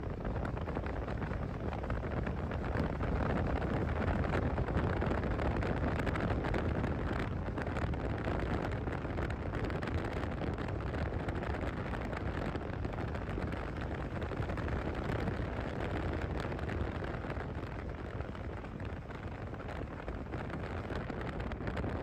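Steady wind rushing over the microphone of a moving motorcycle ride, with a low road and vehicle rumble underneath.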